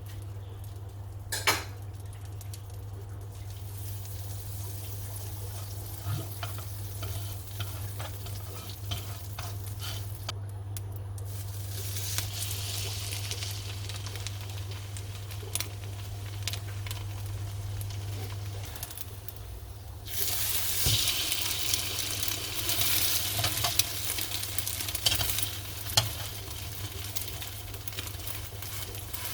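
Food frying in a pan: a sizzling hiss that builds partway through and gets louder and denser about two-thirds of the way in, with small clicks and knocks of a utensil against the pan. A steady low hum underneath stops about two-thirds of the way through.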